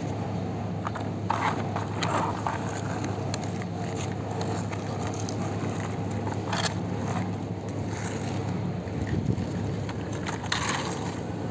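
Sand crunching and scraping as toy vehicles are pushed and dug through it, with a few sharper scrapes, over a steady low hum.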